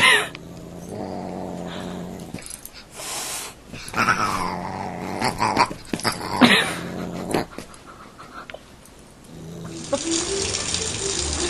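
A dog growling in several short outbursts. Music comes in near the end.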